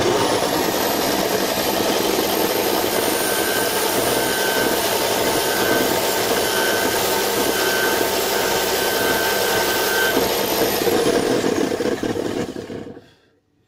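Electric drill running at full speed, spinning a circular saw's armature while a flat file is held against the copper commutator to skim off the surface eaten by sparking brushes. The drill whines up quickly at the start and runs steadily with the file scraping against the spinning commutator. It winds down and stops about a second before the end.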